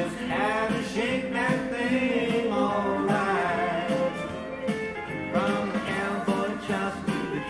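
Country song with guitar, played by a band over a steady beat.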